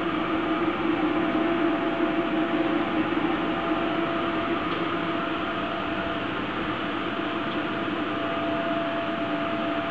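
Steady electrical hum with a fan-like hiss from a high-frequency plastic welder's cabinet, running idle between welds.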